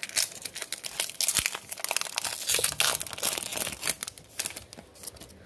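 Foil wrapper of a Topps baseball card pack crinkling and tearing as it is pulled open by hand, in a rapid run of sharp crackles that thins out near the end.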